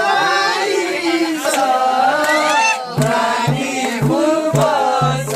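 Men singing a Nepali folk song together. About three seconds in, a madal, the Nepali two-headed barrel hand drum, comes in with a steady run of low beats.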